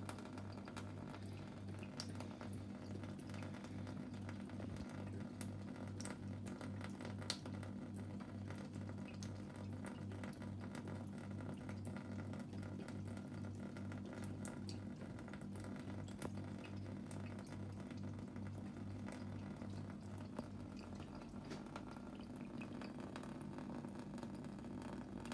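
A thin stream of tap water trickles onto the bottom of a stainless steel kitchen sink while a ragdoll cat drinks from it, with faint scattered ticks of drops. A steady low hum runs underneath.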